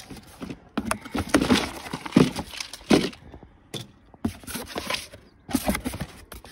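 Cardboard box being opened by hand: flaps pulled back and folded open, with irregular rustling, scraping and a few knocks of cardboard.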